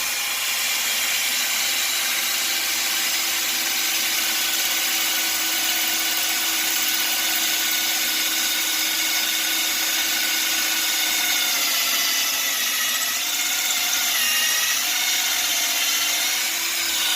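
Power drill running steadily with a spear-point tile bit grinding through marble, dry and in plain rotary mode without hammer action. The drill's pitch wavers over the last few seconds.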